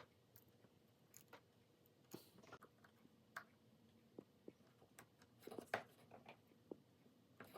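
Faint, scattered small clicks and light taps of jeweller's hand tools on a ring while its stone is set, over near silence. Most of the taps come in a cluster about five and a half seconds in.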